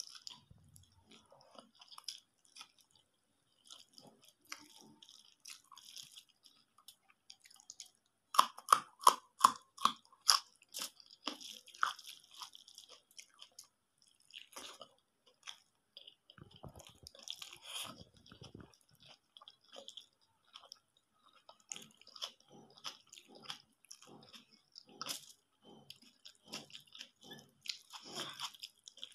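Close-miked chewing and wet mouth sounds of someone eating a rice and egg curry meal. About eight seconds in comes a quick run of about eight loud crunching bites, the loudest part; softer chews and crunches follow.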